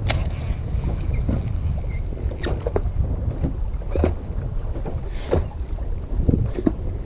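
Wind buffeting the microphone with a steady low rumble on a small fishing boat, with a scattered series of short knocks and taps.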